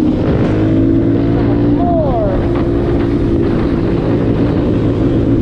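Motorcycle engine running steadily, with a dense rushing noise over it and a brief falling whine about two seconds in.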